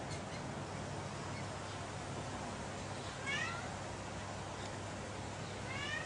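Two short, high whining animal calls, one about three seconds in and one near the end, each sliding in pitch, over a steady background hiss.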